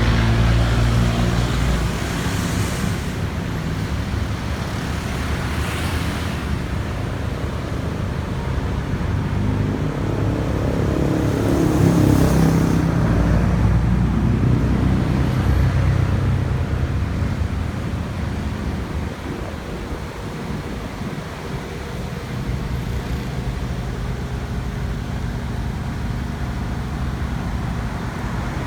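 A vehicle engine running steadily amid road traffic, with a few passing vehicles swelling and fading, the loudest about twelve seconds in. No siren sounds.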